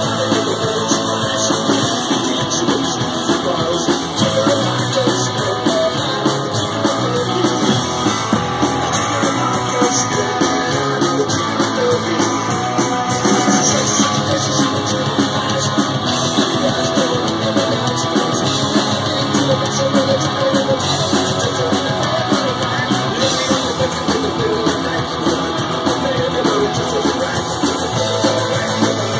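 Live rock music played by a robot band on real instruments: electric guitar, bass guitar and drum kit, loud and unbroken.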